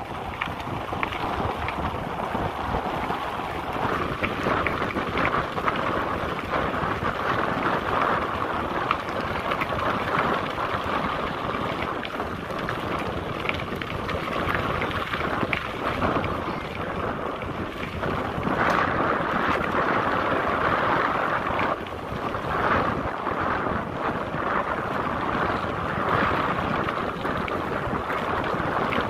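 Wind buffeting the microphone of a camera on a mountain bike riding along a gravel and dirt trail, over a constant rolling noise from the tyres with frequent small clicks and rattles from the bike.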